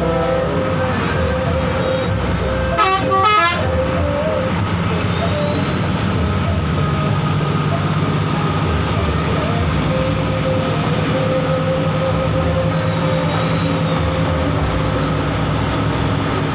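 Bus engine and road noise running steadily, with a short horn blast in two quick parts about three seconds in.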